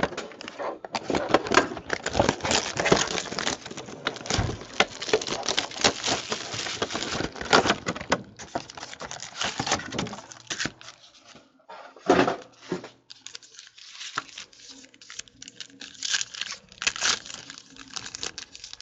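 Hands unpacking trading cards: plastic card boxes clicking and knocking, with packaging crinkling and a foil card pack being torn open. Busy rustling and clicking for the first half, then sparser handling with a single knock, and more crinkling near the end.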